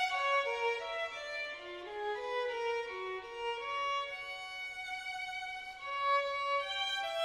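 Background music: a violin playing a melody of held notes.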